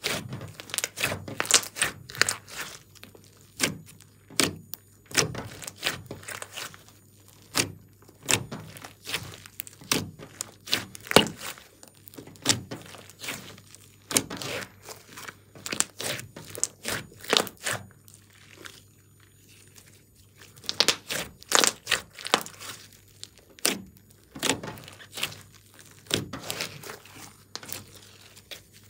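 Hands squeezing, kneading and pulling a large mass of glossy slime mixed with small beads: wet squelches and sharp clicks and pops of trapped air, coming in quick clusters with short pauses.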